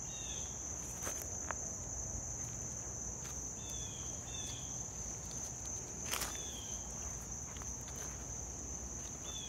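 Steady, high-pitched chorus of insects, crickets, droning without a break, with footsteps crunching through dry leaf litter, one louder step a little past the middle. A few short falling chirps come and go over it.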